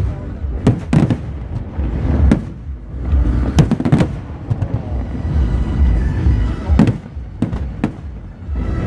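Aerial fireworks bursting in quick succession: sharp bangs and low booms over a steady rumble, with music playing underneath.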